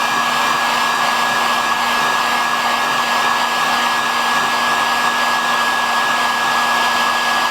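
Electric heat gun blowing steadily on its lowest setting, a constant rush of hot air with a steady motor hum, shrinking heat-shrink tubing over a soldered wire splice.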